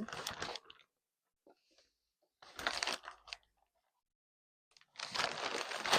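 Shipping packaging being handled and opened: crinkling and tearing in three bursts, the last and loudest starting about five seconds in.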